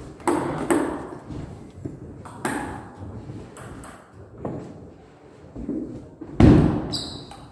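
Celluloid-type table tennis ball clicking sharply, bounced on the table and hit back and forth by bats in a rally, each click ringing briefly in a large hall. About six and a half seconds in comes a louder, deeper thump.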